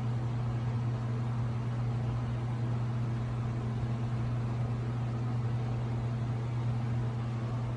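A steady low hum with a faint hiss above it, unchanging throughout, like a small fan or motor running.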